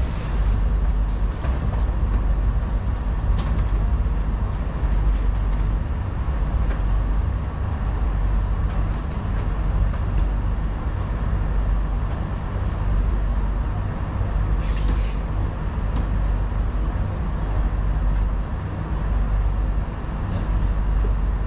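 Singapore MRT train running, a steady deep rumble of wheels and motors heard from inside the carriage, with a few brief clicks from the track, one about fifteen seconds in.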